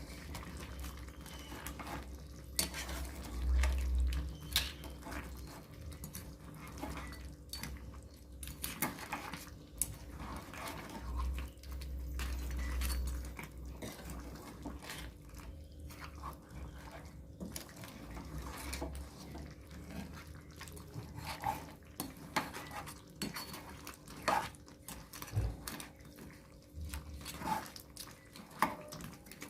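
A metal spoon stirring curry in a kadai, with many irregular clinks and scrapes of metal on metal.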